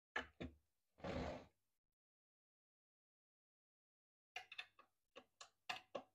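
Clicks, knocks and a brief scraping rub from handling the plastic case of a small portable black-and-white TV during disassembly: two clicks, a half-second scrape about a second in, then a quick run of about eight clicks and knocks near the end.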